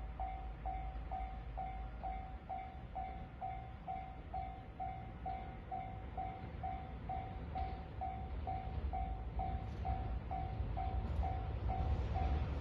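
Japanese railway level-crossing warning bell ringing steadily, one electronic clang about three times a second, signalling that a train is coming. Under it a low rumble builds near the end as the train approaches.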